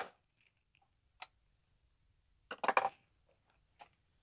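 Hand work on a partly dismantled semi-hermetic compressor and the tools on the bench: a sharp click about a second in, then a quick cluster of several knocks about two and a half seconds in, the loudest part, and a faint click near the end.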